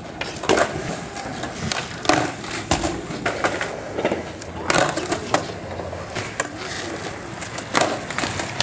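Skateboards on a skatepark's flat ground: wheels rolling, and sharp wooden clacks from tails popping and boards landing as flatground tricks are tried, about one clack a second.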